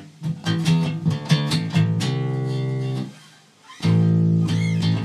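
Jackson electric bass guitar played fingerstyle, a riff demonstrated on its own: a quick run of plucked notes, a note held for about a second, a brief drop-out a little past three seconds in, then another sustained low note.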